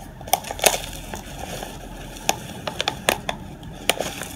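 Hands working loose potting soil in a ceramic pot and handling a thin plastic nursery pot: irregular sharp crackles and clicks, several in quick succession near the middle.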